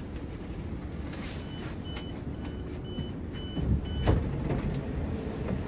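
Train door warning beeps: a run of short, high electronic beeps about two a second over a low steady rumble inside a regional train carriage, with a thump about four seconds in.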